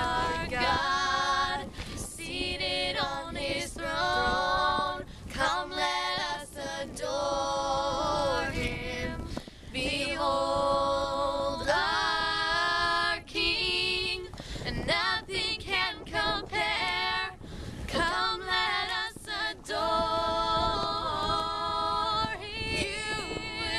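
Three girls singing a hymn a cappella in harmony, in long held phrases with short breaks for breath. Wind rumbles on the microphone underneath.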